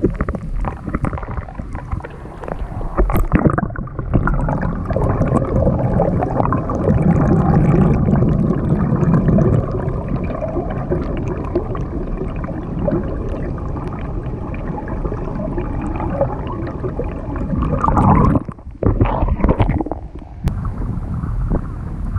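Water gurgling and sloshing close to a pedal boat's hull, loudest in the middle and dropping away sharply for a moment near the end.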